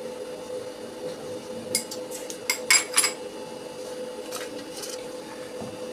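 Kitchen utensils clinking: a spoon and small containers knocking against metal pots and the steel stove top, in a handful of sharp clinks bunched between about two and three seconds in, then a couple of lighter ones later. A faint steady hum runs underneath.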